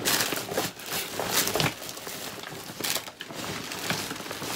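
A bag being rummaged through and handled, with irregular rustling and crinkling throughout.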